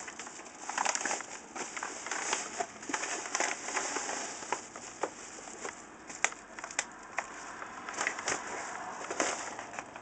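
Paper mailing bag and plastic wrapping crinkling and crackling as they are handled and unwrapped, with many sharp crackles scattered throughout.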